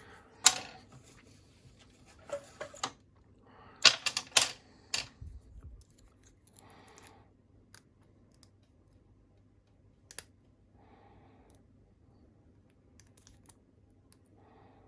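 Lock pick and tension wrench clicking and tapping against a Master Lock M530 pin-tumbler padlock during picking: a cluster of sharp metallic clicks in the first five seconds, then quieter scratching and an occasional single tick.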